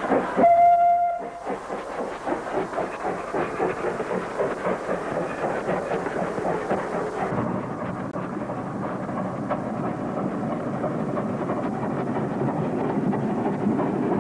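Small steam locomotive, Queensland Railways' A10 No. 6, sounding one short whistle note about half a second in, then chuffing with a quick, even exhaust beat as it works its train. After a cut, the chuffing comes from farther off, duller, and grows louder near the end as the train approaches.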